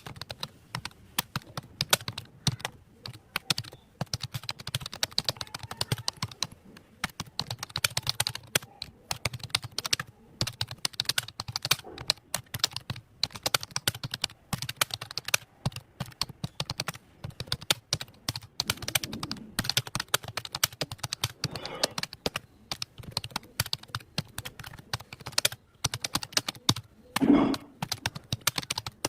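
Fast, continuous typing on a computer keyboard, rapid irregular key clicks with short pauses between bursts. A single louder, short sound stands out near the end.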